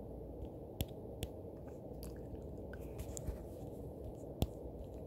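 Quiet room tone with a steady low hum, broken by about six small sharp clicks or taps spread irregularly, the loudest about four and a half seconds in.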